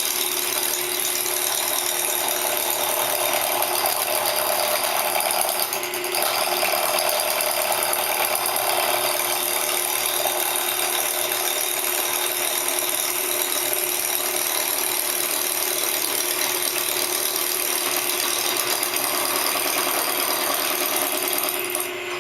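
Wood lathe spinning a padauk and maple laminated blank while a round nose scraper cuts it, chattering steadily against the still out-of-round wood as it takes the high spots off to true it into a cylinder. There is a brief dip about six seconds in. Near the end the cutting noise drops away, leaving the lathe's hum.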